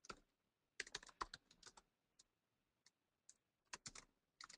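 Faint typing on a computer keyboard: irregular keystrokes in short runs, densest about a second in and sparser afterwards.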